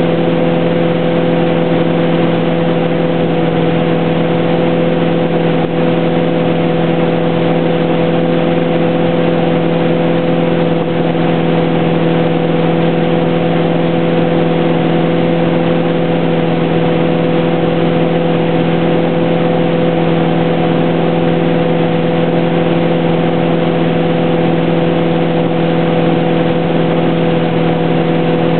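Tow boat's engine running at a constant speed, a steady hum that holds one pitch throughout.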